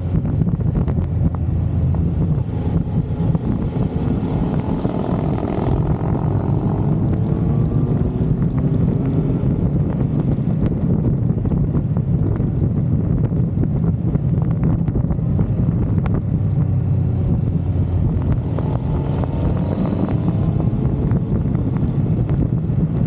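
Motorcycle riding at speed: the engine runs under heavy wind rush on the microphone, and its note rises and falls faintly a few times.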